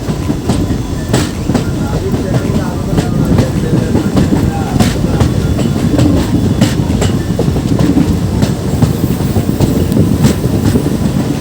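Passenger train running along the track: a steady loud rumble of the coaches with irregular clicks and clatter from the wheels over the rails.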